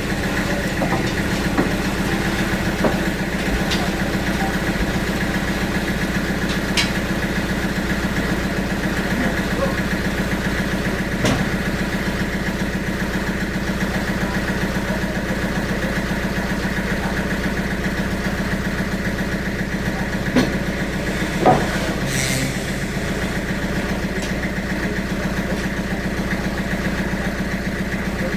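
An engine idling steadily, with a few short sharp knocks about two-thirds of the way through.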